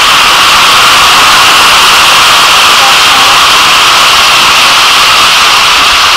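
Chicken legs frying in hot oil in a wok: a loud, steady sizzle.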